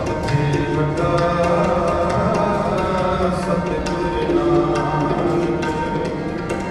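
Sikh kirtan: harmonium playing held chords, with a steady run of tabla strokes and voices singing a hymn.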